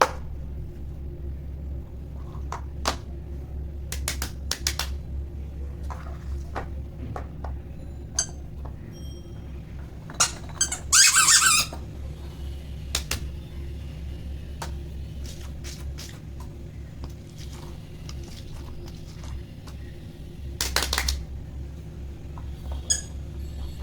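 Fidget toys being handled: scattered clicks, pops and squeaks, with a louder noisy burst about eleven seconds in and a shorter one near twenty-one seconds, over a steady low hum.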